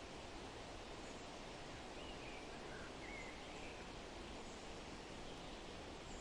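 Forest ambience: a steady rustling hiss, with a few faint bird chirps about two to three seconds in.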